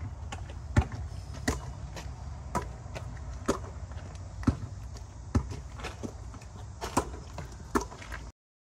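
Basketball being dribbled on an exposed-aggregate driveway: sharp bounces at about one a second, over a steady low rumble.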